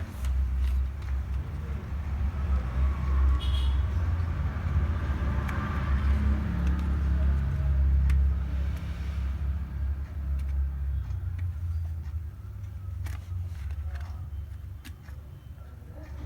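A low rumble, loudest in the first half and fading after about ten seconds, with a few light clicks.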